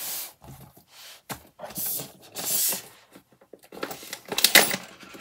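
Handling noise from cash binders: they brush and slide across a table in a few short swishes. Near the end comes a loud run of crinkling and small clicks as a plastic pouch of coins is handled.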